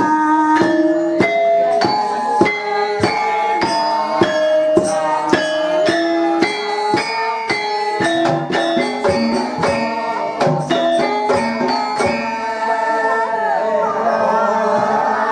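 Javanese gamelan playing with sharp, busy kendang drum strokes over ringing bronze metallophones, and a woman singing held notes that step between pitches. About twelve seconds in the drumming stops, leaving sustained ringing and sung tones.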